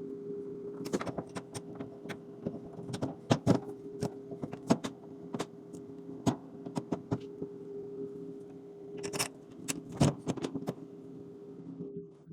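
Scattered metallic clicks, taps and knocks of hinge hardware and hand tools being handled while refrigerator door hinges are refitted, over a steady low hum.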